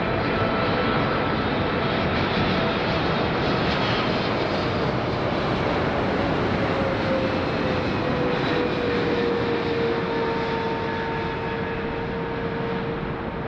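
Boeing 777-300ER's twin GE90 turbofans at approach power as the airliner flies past on final approach with its gear down. A steady jet rumble carries a whine that falls in pitch about halfway through as the aircraft goes by, then holds.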